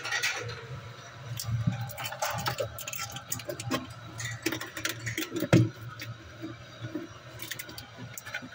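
Irregular clicks and knocks of objects being handled, over a steady low hum; one louder knock about five and a half seconds in.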